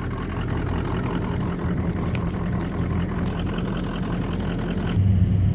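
Pickup truck engine running steadily, growing louder and deeper about five seconds in.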